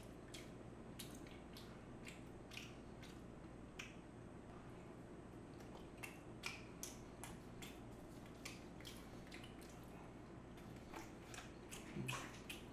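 Close-miked chewing: soft, irregular mouth clicks and wet smacks as food is chewed, with a short low hum about twelve seconds in.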